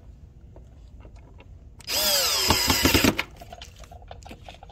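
Cordless drill/driver running for about a second, driving a screw into the scooter's plastic front panel, its motor pitch falling as the screw bites. Faint handling clicks before and after.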